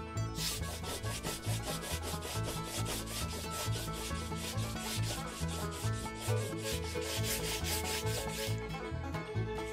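Sanding block rubbed by hand along a glued wooden rod blank, taking off excess glue with quick, even back-and-forth strokes that stop near the end. Music with a repeating bass line plays faintly underneath.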